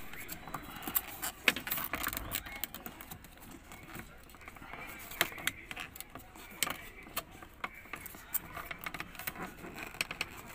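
Irregular sharp clicks and scraping of a metal tool prying at a cracked plastic car-door interior handle cover, plastic knocking and snapping as it is worked loose.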